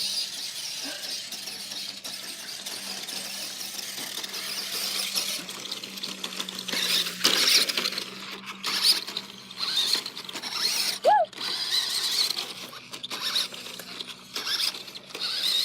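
Toy RC car's electric motor whining at a high pitch, swelling and dropping in bursts as the throttle is worked, choppier in the second half.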